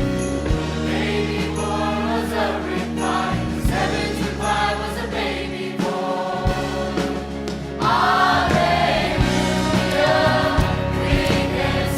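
Choir singing a gospel-style song over an accompaniment with a steady bass line and drum hits, the voices growing louder and fuller about eight seconds in.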